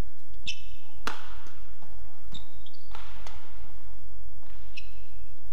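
Badminton rally: sharp pops of rackets striking the shuttlecock several times, strongest about a second in, with short high squeaks of court shoes on the mat in between.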